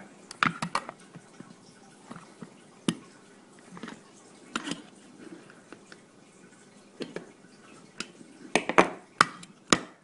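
Needle-nose pliers clicking and scraping inside a jammed Stampin' Up! Bird Builder paper punch as they push its spring-loaded mechanism down. Scattered small clicks, with a quicker run of sharper clicks near the end.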